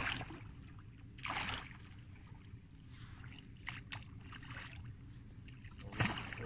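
A hooked carp splashing at the surface of the water close to the bank as it is played in: one splash about a second in, a few small sharp sounds around three to four seconds, and another splash near the end.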